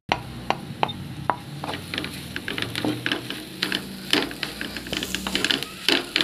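A spatula scraping and knocking against a metal pan while a dry onion and shredded chicken filling is stirred, with a light sizzle underneath. The strokes are few and spaced at first, then come quick and irregular from about two seconds in.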